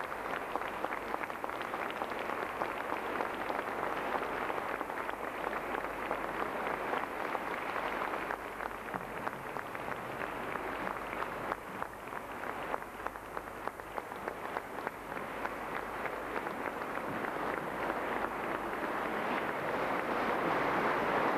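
Audience applauding: a dense, steady clapping that grows louder near the end, in a reverberant church.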